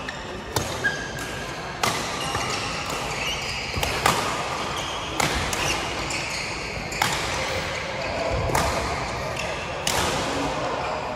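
Badminton rally: rackets hitting a shuttlecock with sharp cracks about every one to two seconds, around seven strikes, over a bed of background voices.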